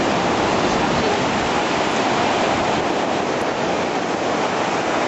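Heavy storm surf on the sea: waves breaking continuously into a steady, loud wash of rushing water.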